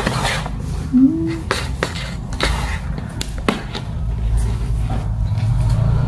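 A stiff paper bag rustling and scraping on a tile floor as a kitten paws and tugs at it, with another kitten inside. There are several sharp crinkles in the first few seconds, a brief rising squeak about a second in, and a steady low rumble underneath.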